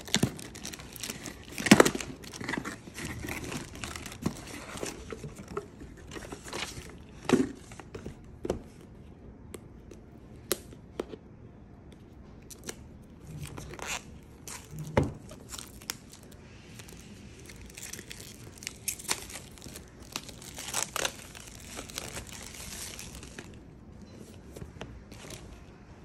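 Packing tape being ripped off a cardboard shipping box, then clear plastic wrap being cut and peeled off a product box. Irregular rips and crinkling with handling knocks, the loudest rip about two seconds in.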